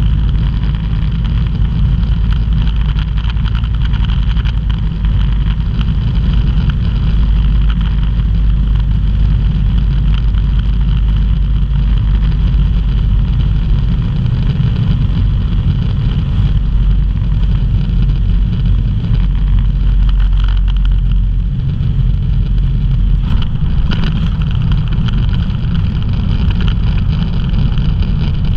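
Microlight aircraft's engine and propeller droning steadily, heard from inside the cockpit with the rush of air, during a descent toward the runway. The engine note shifts slightly about halfway through and again a few seconds later.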